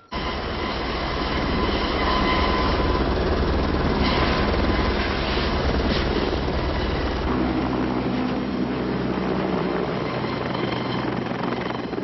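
Helicopter lifting off a helipad and flying away, its rotor and turbine running loud and steady with a fast rotor beat. The sound starts abruptly and eases slightly in its low end about seven seconds in as the helicopter climbs away.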